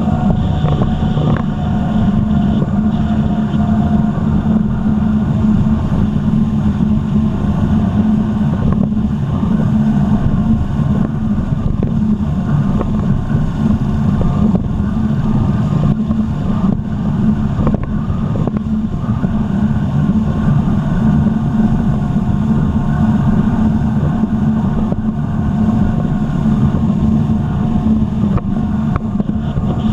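Jet ski engine running steadily under way at a constant speed.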